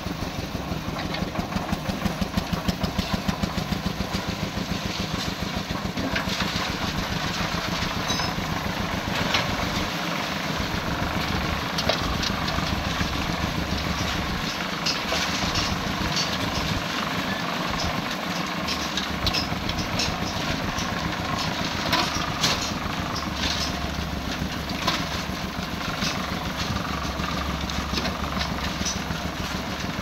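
Portable drum concrete mixer's engine running steadily with a low, even throb, with scattered clanks of metal pans and shovels as concrete is loaded into them.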